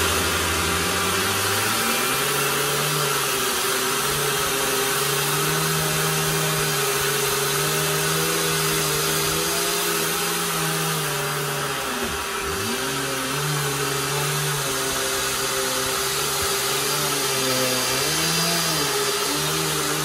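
Dirt Devil Vision Wide Glide bagless upright vacuum with a 12-amp motor, running loudly and steadily while being pushed back and forth over carpet, its stiff-bristled brush roller beating the pile. A steady motor whine sits over a lower hum that shifts as the machine moves.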